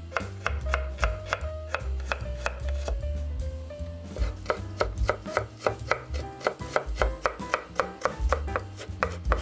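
Chef's knife slicing peeled garlic cloves on a wooden cutting board: evenly spaced taps of the blade on the board, quickening to about four cuts a second about halfway through as the slices are cut into thin strips.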